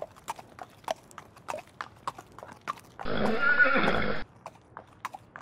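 Horse hooves clip-clopping, about three knocks a second, with a horse whinnying about three seconds in for just over a second before it cuts off abruptly.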